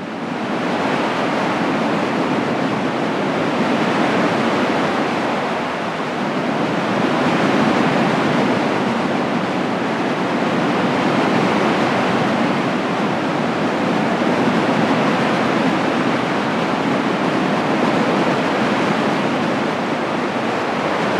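Steady rushing sound of sea surf, fading in over the first second.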